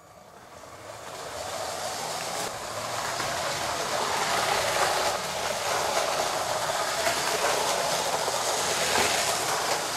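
Motorised Lego 60051 high-speed passenger train running fast on plastic track, a steady rattle of wheels and motor that grows louder over the first few seconds and then holds.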